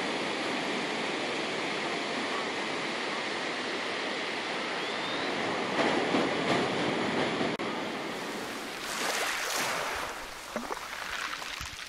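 Ocean surf washing up the sand: a steady rush of waves that swells about six seconds in and again around nine, then eases off near the end.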